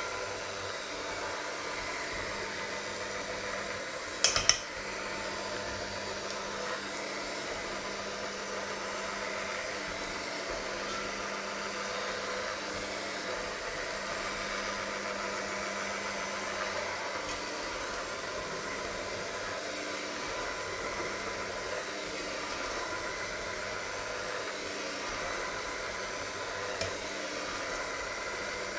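Electric hand mixer running steadily, its beaters whirring through a creamy mixture in a stainless steel bowl. A brief cluster of sharp clicks about four seconds in.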